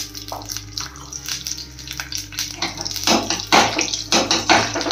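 Hot oil sizzling and crackling in a small pan as a tadka of mustard seeds, cumin, curry leaves and chana dal fries, the crackle growing denser and louder about halfway through.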